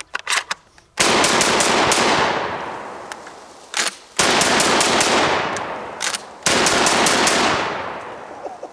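IWI Tavor TS12 12-gauge semi-automatic bullpup shotgun fired rapidly with buckshot and slugs, in three quick strings about a second, four seconds and six and a half seconds in. Each string trails off in a long fading echo, with sharp clicks and reports between strings as the magazine tubes are switched.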